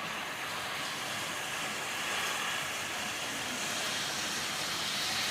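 Heavy rain and storm wind, a steady rushing hiss that slowly grows louder.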